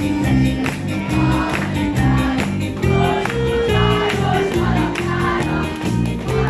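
Live band playing lively Hungarian folk dance music on electric keyboard and guitar, with a steady beat pulsing about twice a second.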